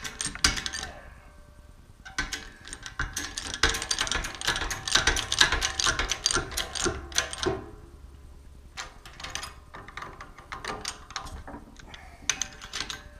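Shop press working, pressing a brass button into a lathe follow-rest guide: a dense run of rapid mechanical clicking and ratcheting, which stops briefly about a second in, resumes for several seconds, then thins to scattered clicks.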